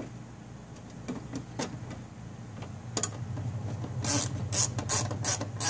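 A license plate bolt being threaded into a bumper nutsert and tightened, with a run of sharp clicks about three a second near the end, over a steady low hum.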